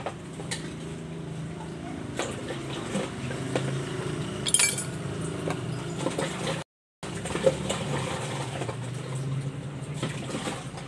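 Dishes being washed by hand: plates and utensils clinking and knocking against each other with water, and a sharper clatter about four and a half seconds in. The sound cuts out for a moment about two-thirds of the way through.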